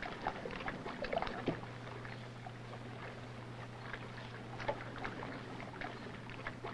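Quiet ambience of a boat lying at rest on the water: faint scattered knocks and soft splashes over a low steady hum from the old 16mm film soundtrack.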